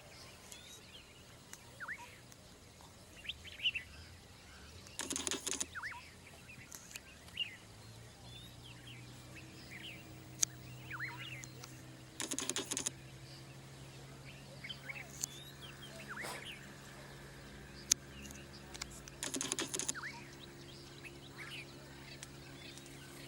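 Birds chirping with many short calls, broken three times by a brief burst of rapid clicking. A low steady hum sets in about a third of the way through.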